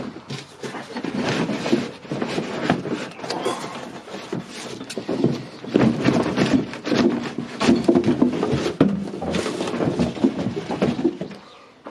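Cardboard box and packaging rustling, scraping and crinkling as an electric concrete saw is pulled out of its box, with irregular knocks and crackles throughout.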